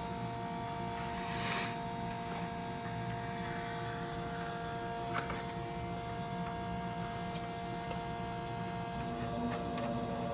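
A steady electrical hum with a few steady tones over a low rumble, broken by a short hiss and a faint click.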